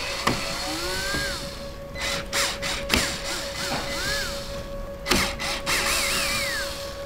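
Cordless drill backing out the small Phillips screws that hold plastic grille inserts, running in short bursts, with background music.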